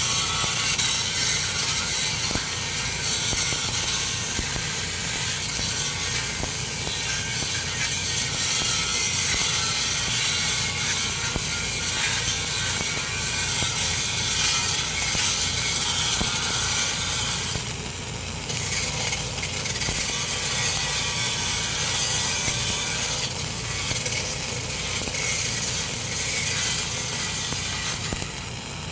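Electric arc welding: a steady, dense crackle of the arc as a weld bead is run to fill a joint, briefly easing about two-thirds of the way through.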